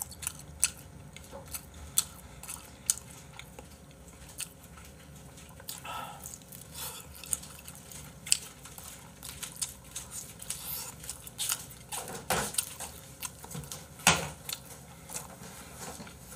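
Close-up chewing of fried egg, with irregular sharp clicks of chopsticks against a small bowl.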